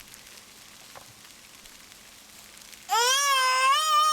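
Faint steady hiss of rain and hail falling, then about three seconds in a toddler lets out a loud, long, high-pitched wail.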